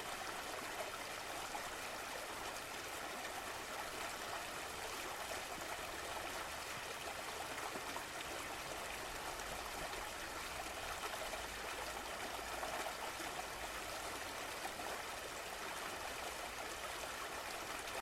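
Running water flowing steadily with an even, unchanging rush.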